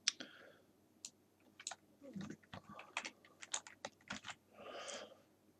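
Faint, irregular computer keyboard keystrokes and mouse clicks as text in a field is selected and retyped.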